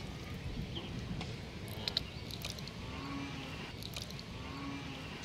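Wet mud squelching as a bare hand is worked down into a muddy hole and pulled back out, with a few sharp clicks about two seconds in.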